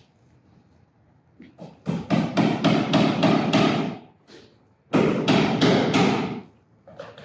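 Hammering in two fast runs of sharp blows, about five strikes a second: the first lasts about two seconds, the second is shorter and follows after a brief pause.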